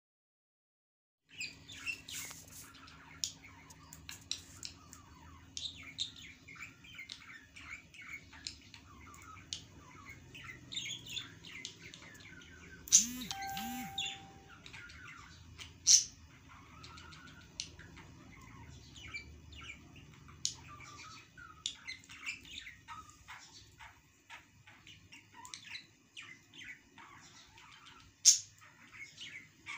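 Small birds chirping and twittering busily, starting after a moment of silence. A few sharp clicks stand out above them, the loudest about halfway through and near the end.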